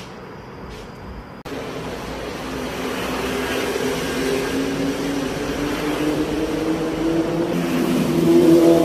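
Street traffic: a motor vehicle's engine hum grows steadily louder and rises a little in pitch as it approaches. About a second and a half in, a quieter steady background hum cuts off abruptly and the traffic sound takes over.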